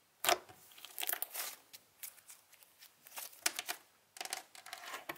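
Hand squishing and pressing a soft orange pumpkin-flapjack slime, giving irregular sticky crackles and squelches with short pauses between presses.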